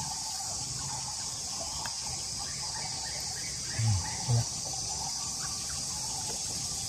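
Steady high-pitched chorus of crickets and other insects, with two brief low sounds about four seconds in.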